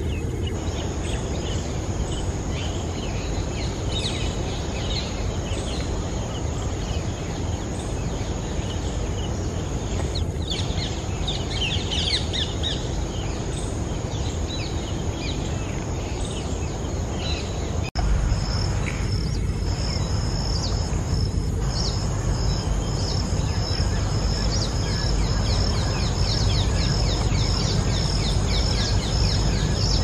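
Forest ambience: small birds chirping here and there over a steady high insect hum and a steady low background noise. After a cut about two-thirds of the way in, a high chirp repeats rapidly, several times a second, and the whole is a little louder.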